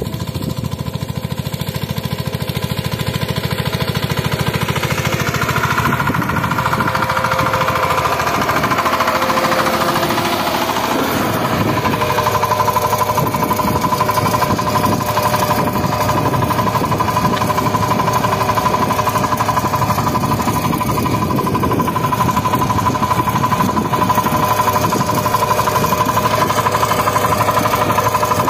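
Single-cylinder diesel engine of a Shakti 130 DI power tiller running with a fast, steady knock under load as it pulls a ridging blade through the soil, louder over the first few seconds as it comes close.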